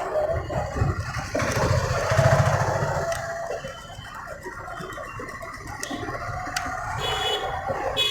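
A motor running loudly for about three seconds, strongest around two seconds in, then dying away to a quieter background with a few clicks.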